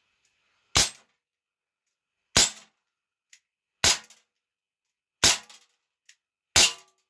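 Dan Wesson .357 CO2 revolver firing .177 pellets: five sharp shots about a second and a half apart, each followed by smaller clicks as the pellets strike and knock down metal duck targets.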